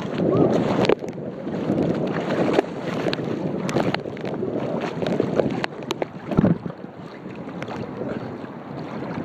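Water sloshing and splashing right against a phone's microphone as a person wades neck-deep through water, with the phone held at the water's surface. It is loudest in the first second, then carries on lower and uneven, with small clicks and knocks.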